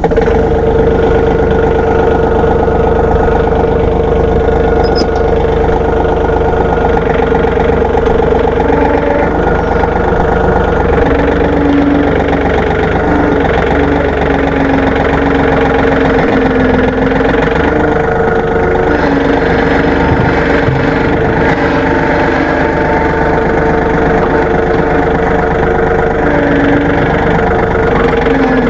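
Farm tractor engine running steadily and loudly, with a lower tone that comes and goes over the top of its drone.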